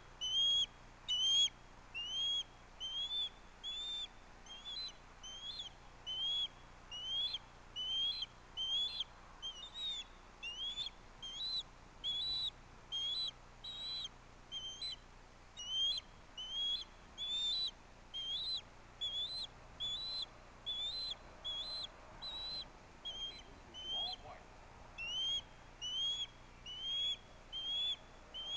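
Juvenile osprey calling: a steady string of short, rising whistled chirps, about three every two seconds, a little higher-pitched in the middle stretch. The incessant repetition is typical of a young osprey begging for food.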